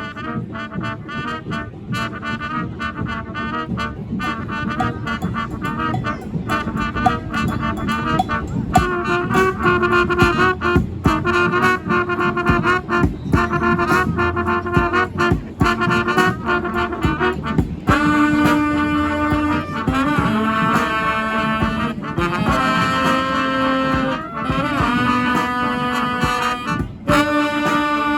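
Brass band playing live: short, punchy rhythmic chords, changing to longer held notes about two-thirds of the way in.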